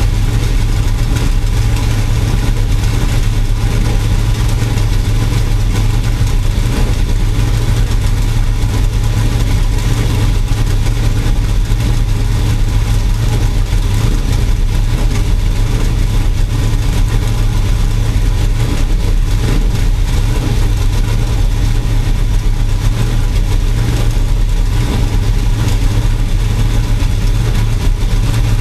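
A race engine running at a steady speed, its low drone and noise holding constant with no revving up or down; the engine has a misfire.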